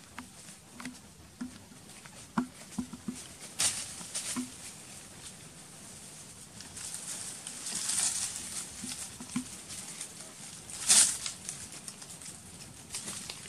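Monkeys moving on a branch among leaves: soft rustling with scattered light clicks and taps, a few short low sounds, and brief louder rustles, the loudest about eleven seconds in.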